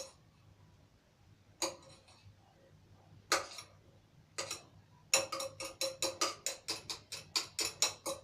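Background music made of a ticking, wood-block-like percussive beat at about four ticks a second. It drops out at the start, leaving a few scattered clicks, and comes back steadily about five seconds in.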